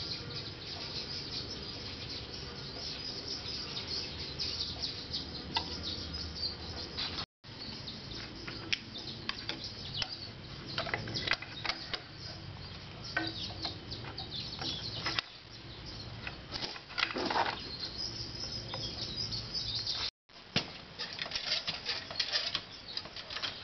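A brush stroking and dabbing graphite powder onto motorcycle clutch discs, a rustling scrape, with scattered light clicks and clinks as the metal plates are handled.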